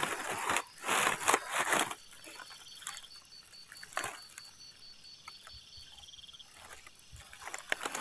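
Dry leaves and grass rustling close to the microphone in several bursts over the first two seconds. Then it is quieter, with scattered faint crackles, one short rustle about four seconds in, and a faint high pulsing chirp in the background.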